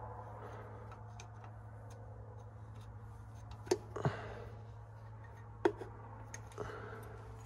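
Light clicks and taps of small metal fuel return line fittings being handled and worked at on top of diesel injectors, with a few sharper clicks around the middle, over a steady low hum.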